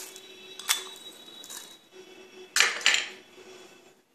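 A few sharp clinks and taps of kitchenware, a whisk, spoon and bowls, with single taps early and a louder quick cluster about two and a half seconds in.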